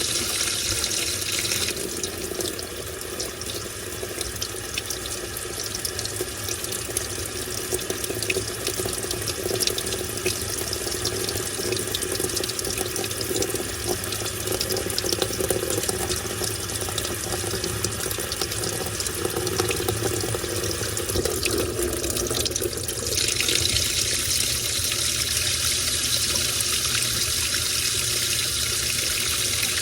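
Washing machine taking in water: a steady rush of water pouring into the drum. The hiss eases off about two seconds in and comes back strongly about 23 seconds in.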